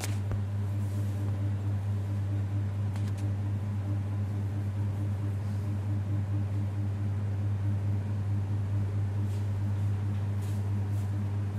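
Steady low electrical hum, one deep tone with a ladder of overtones above it, running unchanged, with a few faint ticks.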